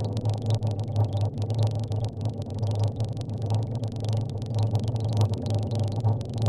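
Steady low drone of a car driving at cruising speed, engine and road noise heard from inside the cabin.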